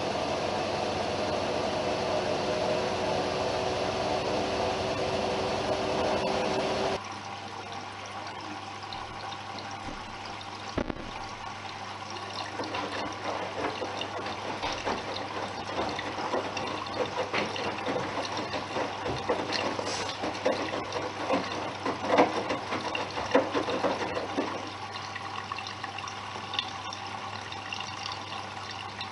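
Bosch WAQ 28477EX Serie 6 washing machine: a steady machine hum with a fixed tone cuts off abruptly about seven seconds in. Water then splashes and gurgles into the machine as it fills.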